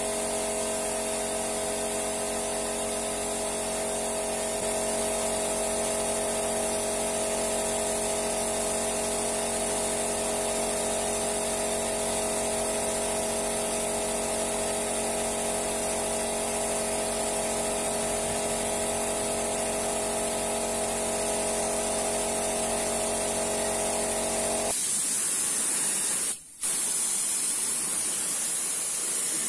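Small piston air compressor running steadily under the high, even hiss of a gravity-feed spray gun spraying paint. Near the end the compressor's hum cuts off abruptly and only the spray gun's hiss goes on, broken by a split-second dropout.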